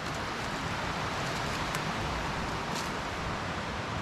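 Steady rushing of a mountain creek's white water.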